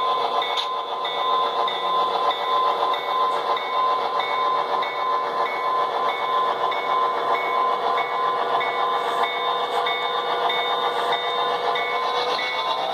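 Model diesel locomotive sound from the sound-equipped models, a steady electronic engine drone with a short high tone repeating about twice a second.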